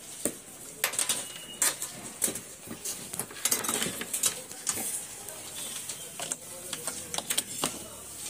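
Irregular clicks, knocks and rustling of hands handling wires and a power connection, with a faint steady high hiss throughout.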